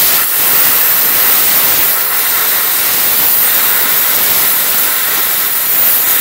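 Plasma cutter's arc hissing loudly and steadily as it cuts through thick steel plate covered in weld beads.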